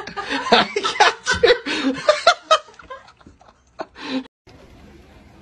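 A person laughing hard in quick, pulsing bursts that die away after about two and a half seconds, then a brief voice-like sound about four seconds in.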